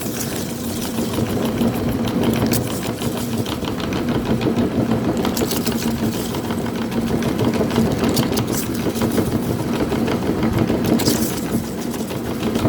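Electric meat grinder motor running with a steady hum, with irregular crackling as corn snack chips are ground through it.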